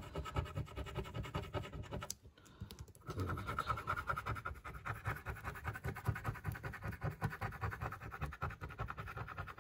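Scratch-off coating being rubbed off a Sportloto 'Golf' instant lottery ticket in quick, repeated strokes. It pauses briefly about two seconds in and resumes about three seconds in.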